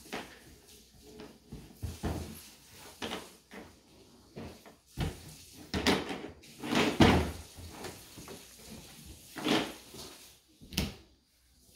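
Hollow plastic knocks and clatters from a baby crawling over and banging on plastic playpen panels lying on the floor: an irregular series of separate bumps, the loudest about seven seconds in.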